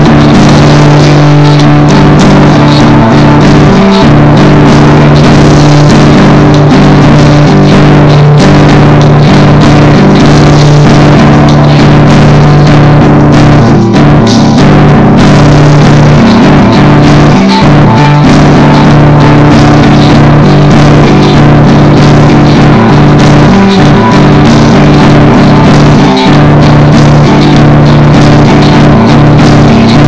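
Very loud rock music with guitar and drums, held at a flat, even loudness.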